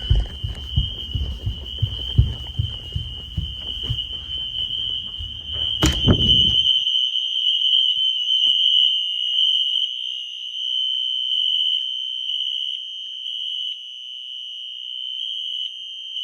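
Fire alarm horn set to continuous, sounding one steady high-pitched tone. Footsteps thump up the stairs through the first half, with a sharp knock about six seconds in.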